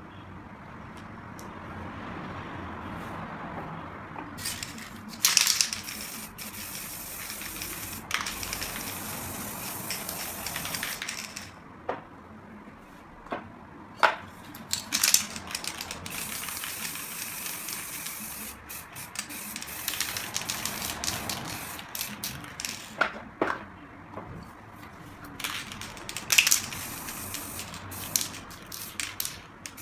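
Aerosol spray-paint cans spraying in several long hissing bursts of a few seconds each, with short clicks and knocks from handling the cans between the bursts.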